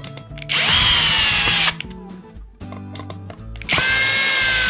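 Cordless drill driver driving screws into a white flat-pack drawer panel, in two bursts: a short one about half a second in and a longer one starting near the end. Its whine slides slightly down in pitch during each burst.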